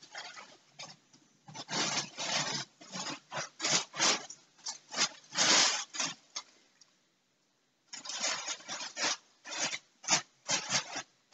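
Cats pawing and nosing into a crinkly orange fabric cat toy, making irregular bursts of rustling and crinkling. The sound cuts out completely for about a second midway, then the rustling resumes.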